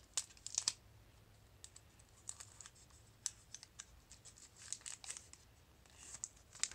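Foil wrapper of a Pokémon TCG Battle Styles booster pack crinkling and ticking as it is cut and pulled open by hand. The sound comes as faint scattered clicks in small clusters.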